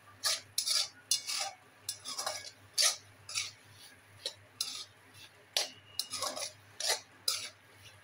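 Metal spoon scraping and clinking against a metal kadhai as thick masala with pieces of elephant foot yam is stirred and fried down, in irregular strokes.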